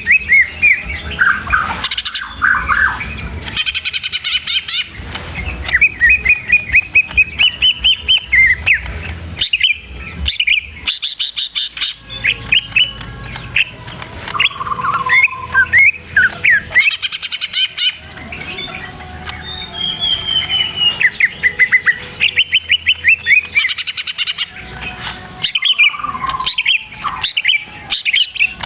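Young bird chirping and calling in quick runs of sharp, rapid notes and short squawks, broken by brief pauses.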